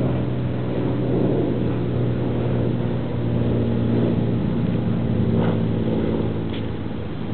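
A steady low mechanical hum with an engine-like drone, with a couple of faint clicks after the middle.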